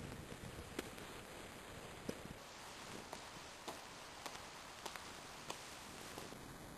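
Faint footfalls of an athlete bounding or running, sharp taps evenly spaced a little over half a second apart, over a steady hiss.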